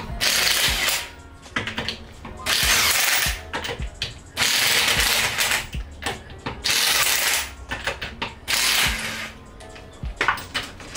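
Corded electric impact wrench hammering in five short runs of about a second each, one for each lug nut on a front wheel of a Mazdaspeed 3.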